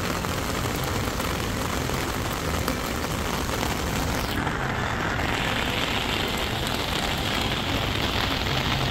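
Steady rain falling on wet paving, an even hiss throughout. About four seconds in, its tone shifts and the very highest part of the hiss fades.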